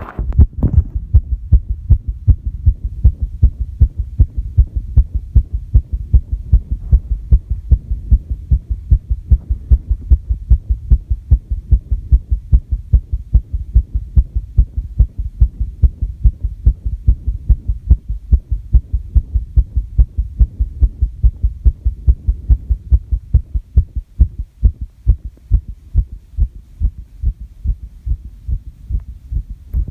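A person's heartbeat picked up against the chest: a fast, regular train of low thuds, quickened by squats and jumps.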